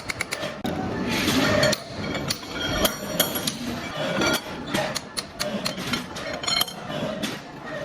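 A hammer striking metal, an irregular series of sharp clinks, some of them ringing briefly.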